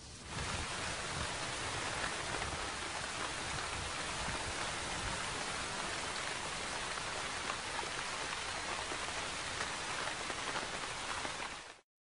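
Steady rain falling on forest trees, an even hiss that begins just after the start and cuts off suddenly near the end.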